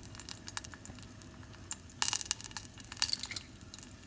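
Butter and pepper paste frying in a stainless steel pot, crackling and spitting unevenly, with the crackle getting louder about two seconds in.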